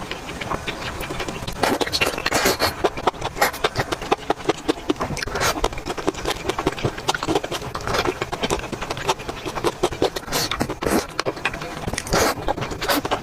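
Close-miked eating sounds: a person chewing with many quick wet clicks and smacks, with louder bursts of mouth noise every second or so.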